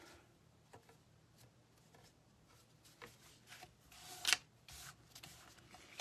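Paper and card being handled and positioned on a desk: soft taps and rustles, with one louder brushing scrape a little past four seconds in.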